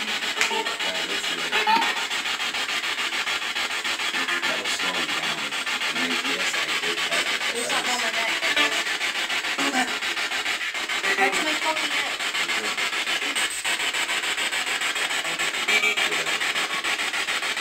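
Handheld spirit box radio sweeping through stations: a steady hiss of static with brief broken snatches of sound flickering through it.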